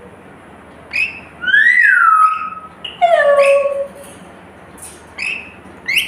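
Rainbow lorikeet calling in a series of short whistled notes that glide in pitch: a brief call about a second in, a longer one that rises and then falls, a falling call at about three seconds, and another short call near the end.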